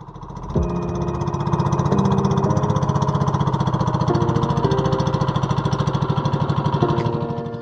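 Small outrigger boat's engine running under way, a fast, even putter of about a dozen beats a second. It comes up in the first half-second, holds steady, and fades near the end.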